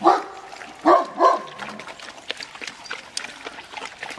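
A dog barks three times in the first second and a half. Then comes a steady patter of small clicks and crunches: puppies eating kibble from metal feeding pans.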